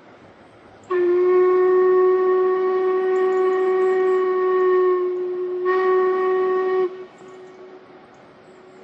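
Steam locomotive whistle blowing one long blast, then a short second blast straight after, cutting off sharply.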